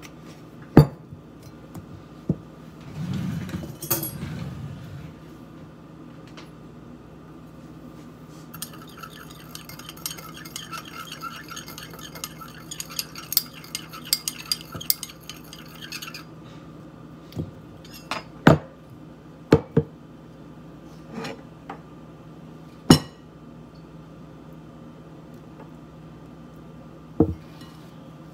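A metal spoon stirring quickly in a small glass dish, with several seconds of rapid clinking against the glass. Before and after come single sharp knocks of a spoon and glassware being tapped or set down.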